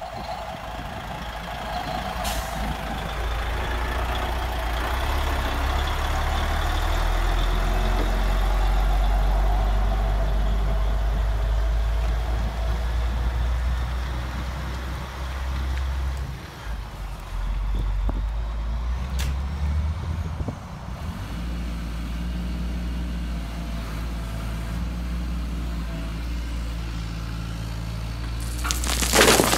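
Model truck's simulated diesel engine sound running, its pitch stepping up and down as it drives. Near the end, gravel poured from an excavator bucket rattles into a plastic dump trailer.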